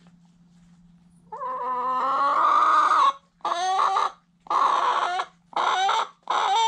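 Chicken calling loudly at close range: one long drawn-out call about a second in, then four shorter squawks in quick succession, roughly one a second.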